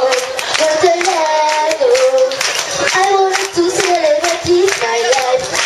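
A girl singing a melody into a microphone over a PA, with the audience clapping along in a steady rhythm.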